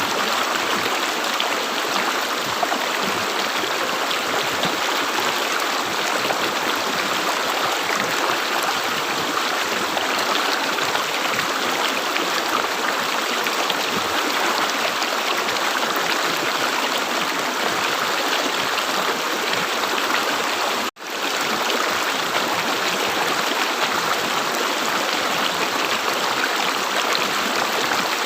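River water flowing and gurgling over stones: a steady, even rush. About three quarters of the way through it cuts out for an instant and comes straight back.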